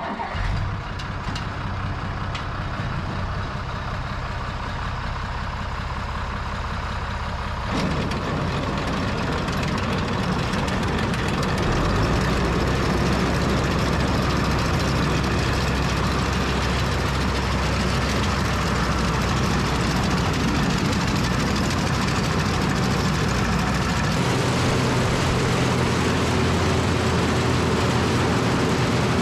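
International 686 tractor engine running with a New Idea corn picker mounted. About eight seconds in, a busier, louder mechanical clatter joins it as the picker's chains and rolls are run up, then holds steady.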